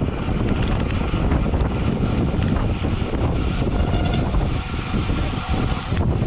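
Wind rushing over the microphone of a rider's camera at road-racing speed: a steady low rumble, with a few faint clicks.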